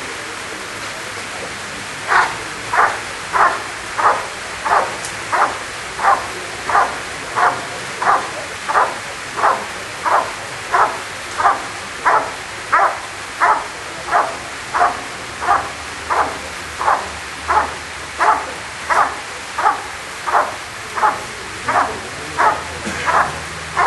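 Rottweiler barking without pause at a man standing in front of it, about one and a half barks a second, starting about two seconds in: the steady guarding bark of Schutzhund protection work.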